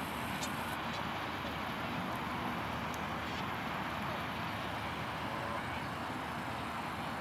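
Steady outdoor background noise: an even hiss and low rumble of distant traffic, with no distinct events.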